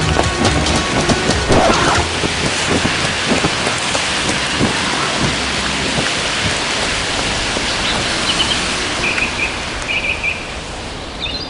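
Heavy rain falling steadily on a street and pavement, with a few short high chirps near the end.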